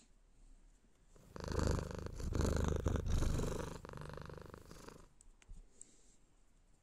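Domestic cat purring loudly while being stroked, starting about a second in and fading out after about four seconds.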